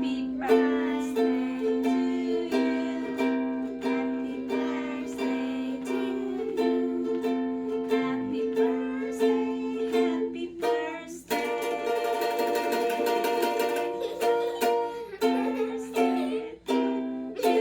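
Kala watermelon fruit ukulele strummed in a steady chord rhythm, about two strums a second. About two-thirds of the way in it breaks into a few seconds of fast, dense strumming before returning to the steady pattern.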